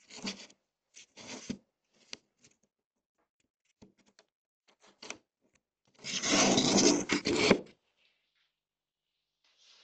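Short rubbing and scraping noises, then a louder, rougher scrape lasting nearly two seconds about six seconds in.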